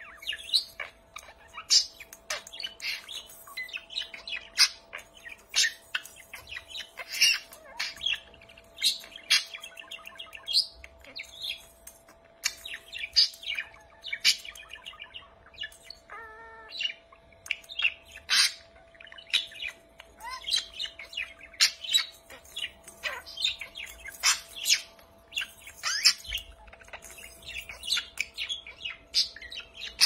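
Budgerigar chattering: a fast, continuous run of short chirps and warbles.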